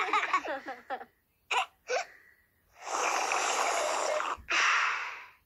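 Cartoon voices cheering, fading out within the first second. Then two short, sharp vocal sounds close together, followed by two longer rushing, hissing noises.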